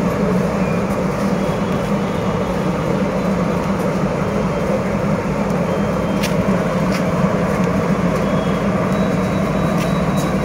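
An engine running steadily, a continuous low drone with no change in speed.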